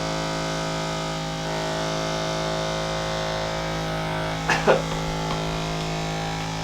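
Handheld electric massage device running with a steady electric buzz on the leg muscles, with a brief vocal sound about halfway through.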